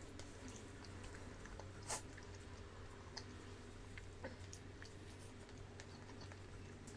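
Chewing and mouth sounds of someone eating deviled eggs: soft scattered wet clicks and smacks, one sharper click about two seconds in, over a faint steady low hum.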